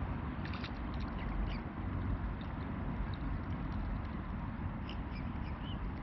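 Scattered short waterbird calls, a few in the first couple of seconds and several more near the end, over a steady low rumble.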